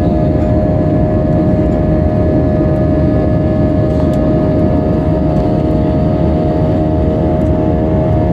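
Airbus A320 jet engines and airflow during the climb after takeoff: a steady, loud drone with a constant hum standing above the rumble.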